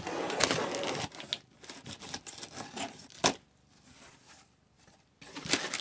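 A blade slitting the packing tape along a cardboard box's seam for about a second, then the cardboard flaps being pulled open, with rustling and one sharp knock about three seconds in.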